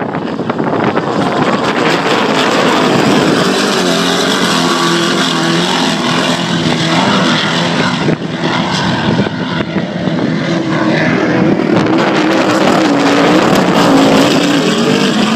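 Offshore racing powerboats running flat out as they pass: a loud, continuous engine drone whose pitch wavers up and down in the second half.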